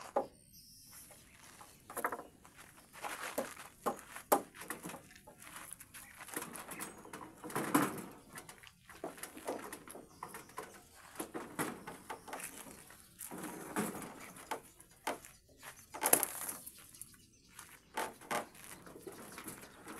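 Wooden planks knocking and clattering at irregular moments as they are lifted and stacked, with the loudest knocks about eight seconds in and near the end.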